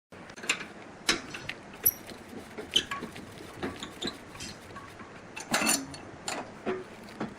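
Irregular clinks and knocks of hard objects being handled, a dozen or so sharp strokes at uneven intervals over a faint hiss.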